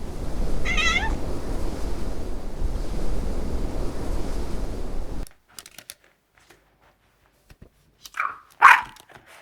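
Rustling outdoor noise with a brief wavering chirp near the start, cut off abruptly; then, after a near-silent gap with faint clicks, two short loud calls from a domestic animal about half a second apart near the end.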